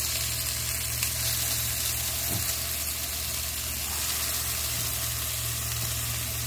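Marinated raw chicken kabobs sizzling on the hot grate of a preheated Ninja indoor electric grill, a steady frying hiss over a steady low hum.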